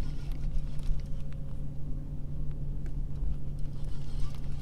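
Wind rumbling on the microphone over a steady low hum, with a few faint ticks from a baitcasting reel being cranked against a heavy catfish.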